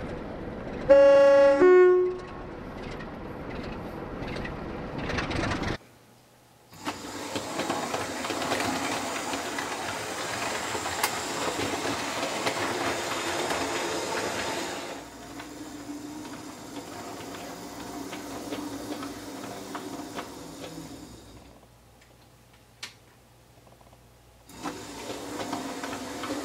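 A two-tone train horn sounds about a second in, a higher note then a lower one. Train running noise with rail clatter follows, stops briefly, comes back, and dies away. Near the end a model train's motor starts whirring.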